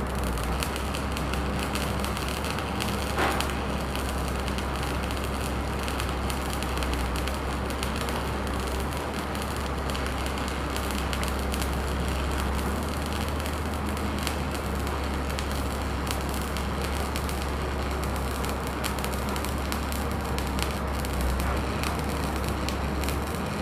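Stick (shielded metal arc) welding: the electrode's arc is struck right at the start, then crackles and sizzles steadily as a vertical weld is run on steel. A steady low hum sits underneath.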